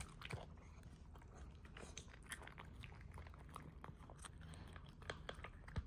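A puppy chewing and eating its food: faint, irregular clicks and smacks of jaws and mouth, several a second.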